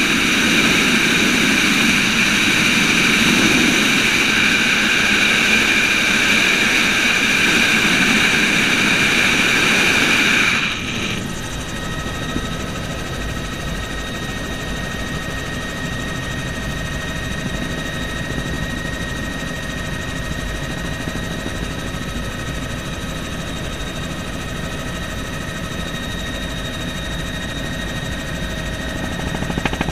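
Bell helicopter in flight, heard from inside the cabin: steady rotor and engine noise. For the first ten seconds or so it is covered by loud rushing air, then it drops abruptly to a quieter drone with a steady high whine.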